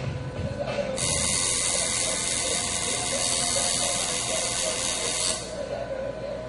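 Tattoo machine running as the needle works ink into skin, a steady drill-like buzz that starts about a second in and stops about five seconds in.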